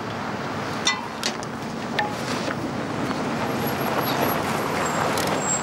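A ute driving up, its engine and tyre noise growing slowly louder, with a few light knocks in the first couple of seconds.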